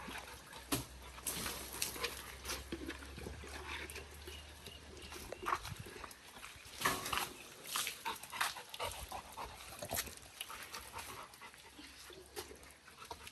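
A Labrador retriever's own small sounds: short, scattered wet and scuffling noises, a few louder ones around the middle.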